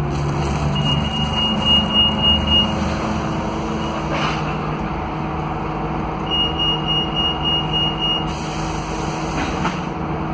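Scania DC09 five-cylinder diesel engine of a K320UA articulated bus running, heard from inside the passenger cabin. Twice a thin, steady high tone sounds for about two seconds, about a second in and again about six seconds in.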